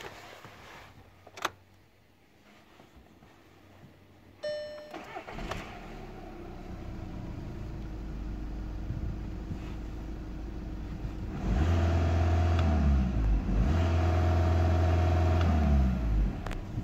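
VW 2.0 TDI CBD four-cylinder common-rail diesel engine started about four and a half seconds in, then idling. It is revved twice, each time rising, holding at about 2,000 rpm for a couple of seconds and falling back to idle, much louder than the idle.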